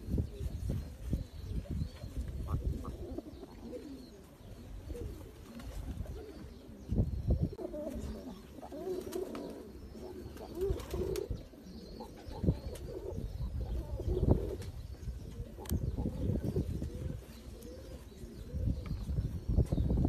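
Domestic pigeons cooing, several overlapping coos clearest in the middle, over irregular low rumbling.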